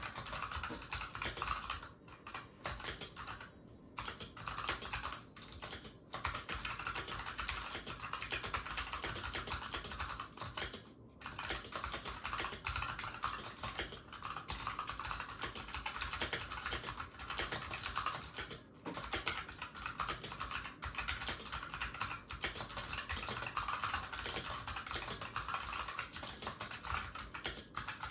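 Fast typing on a Razer Huntsman Mercury Edition keyboard with clicky purple optical switches: a dense run of key clicks, broken by a few short pauses.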